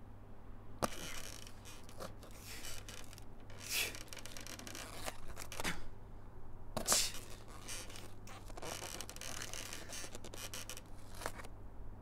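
Metal scraping and clicking at a door lock, in a series of short scratchy bursts with sharp clicks between them, as someone works a tool in the lock to pick it.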